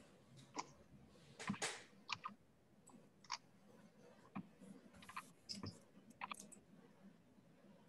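Faint, irregular clicks of a computer mouse and keyboard, about a dozen scattered taps, as a URL is copied into a new browser tab.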